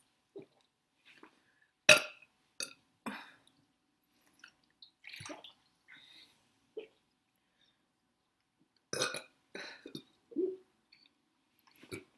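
Woman burping repeatedly after drinking a lot of cola: a string of separate burps, the loudest about two seconds in, with shorter ones after it and another cluster about three-quarters of the way through.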